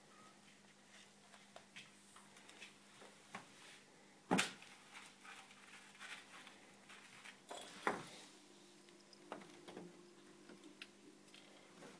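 Kittens playing in a clear-sided enclosure: scattered light taps and scuffles, with one sharp knock about four seconds in and a smaller cluster of knocks around eight seconds.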